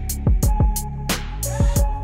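Background music with a beat: sharp percussion hits several times a second over deep bass drum hits that drop in pitch, with steady held tones.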